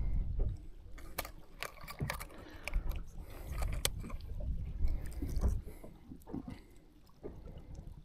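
Scattered sharp clicks and small knocks of hands working a digital fish scale and its clip with a bass hanging from it, over bursts of low rumble near the start and again around the middle.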